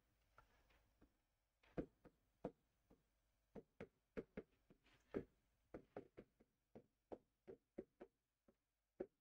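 Stylus tapping and scraping on the glass of an interactive touchscreen board while writing by hand: faint, irregular taps, about two or three a second, starting about two seconds in.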